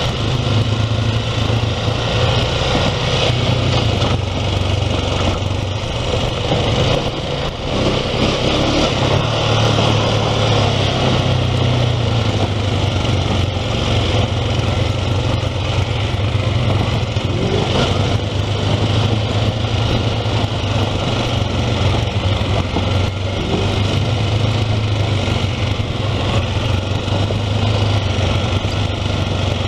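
ATV engine running steadily as the quad rides along a dirt trail, heard from on board the machine, with tyre and trail noise mixed in.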